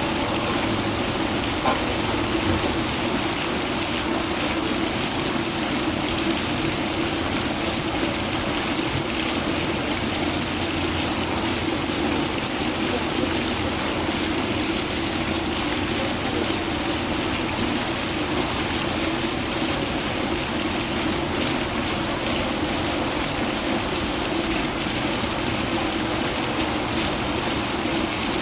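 A steady, even rushing noise, like running water, with no distinct calls standing out.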